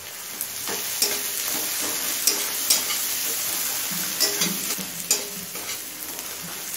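Sliced onions and whole spices sizzling in hot oil in a metal kadai, stirred with a metal spatula that scrapes and knocks against the pan several times over the steady sizzle.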